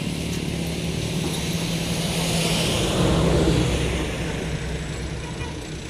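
A motor vehicle's engine running with a steady low hum, growing louder about two to three seconds in and then fading.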